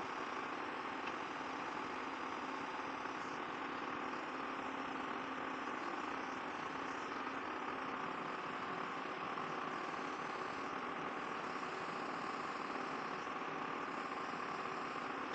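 Butane soldering iron's burner giving a steady, even hiss while it heats.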